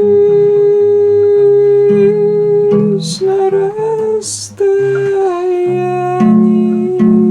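Music: plucked guitar notes under a long, steady held melody note that steps in pitch a few times. Two short hisses come about three and four seconds in.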